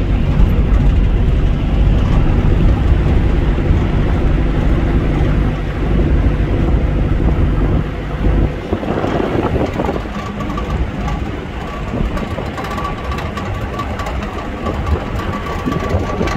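Vehicle engine and tyres heard from inside the cab, driving on beach sand: a steady low engine rumble that drops in level about halfway through. A thin steady tone comes in over the last few seconds.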